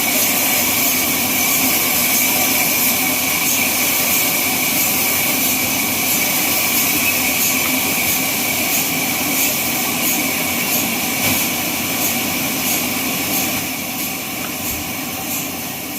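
Sawmill machine running with a steady mechanical whine and faint regular ticking; the sound fades away near the end.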